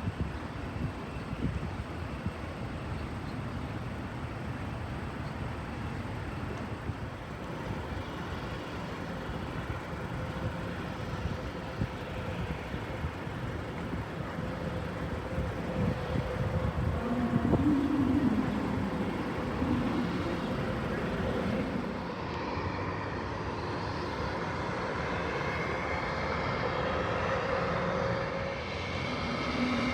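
Aircraft engines making a steady rumble that grows louder from about halfway in, with a faint steady whine through the second half.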